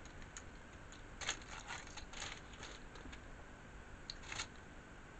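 Faint, scattered clicks and light crinkling as hands handle fajita tacos in a plastic takeout tray, in two small clusters about a second in and near the end.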